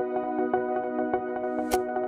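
Electronic ambient background music: a held synthesizer chord with a quick, even pulsing rhythm, and a brief swish near the end.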